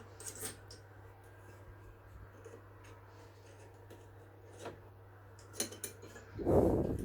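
Small metal parts being handled on a workbench: scattered light metallic clicks, then a louder rubbing knock near the end, over a steady low hum.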